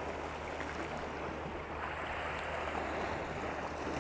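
Small sea waves washing steadily against a rocky shoreline.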